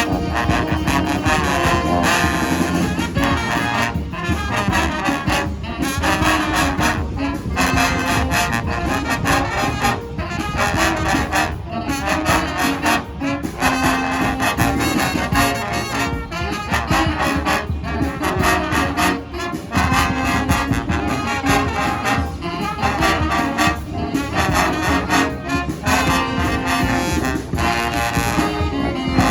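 Street brass band playing a tune without pause, horns holding notes over a steady beat.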